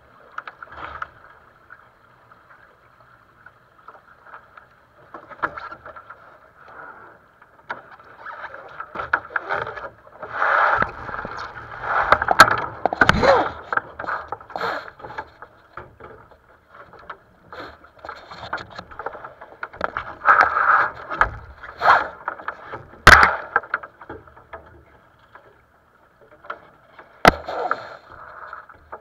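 A sailing dinghy under way: rushing, fluctuating water and wind noise against the hull, with several sharp knocks as the crew move about on deck and handle the lines, the loudest a little before halfway and two more later on.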